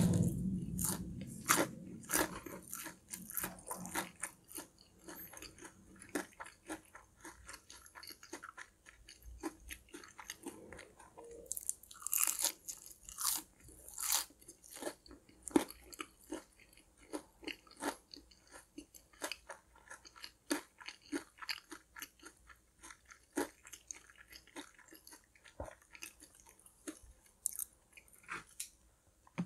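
Close-miked chewing of crispy fried food: a long run of sharp crunches and bites, loudest right at the start and again about twelve to fourteen seconds in.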